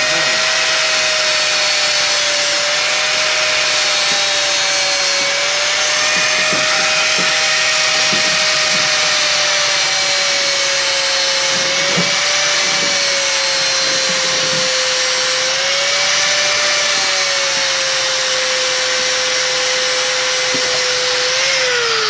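Corded angle grinder running steadily, grinding into the steel door hinge to take off the old hinge pin on a Jeep Cherokee XJ door. Its whine sags a little in pitch now and then as the disc bites, and near the end it is switched off and starts winding down.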